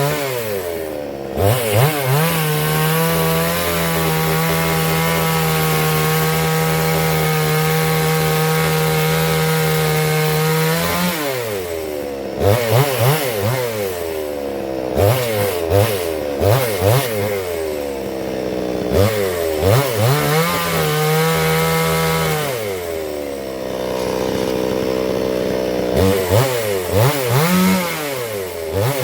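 Chainsaw on a vertical chainsaw mill ripping a log lengthwise, running at a steady high speed under load. In the second half it repeatedly drops toward idle and revs back up.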